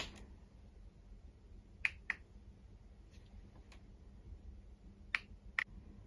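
Toy packaging being handled and turned around: a few light, sharp clicks that come in pairs, about two seconds in and again just after five seconds.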